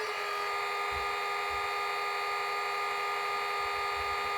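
Class 66 diesel engine start-up sound from a model locomotive's DCC sound decoder, played through its small onboard speaker. It cuts in suddenly and runs on steadily as a whine made of several held tones, with irregular low pulses beneath.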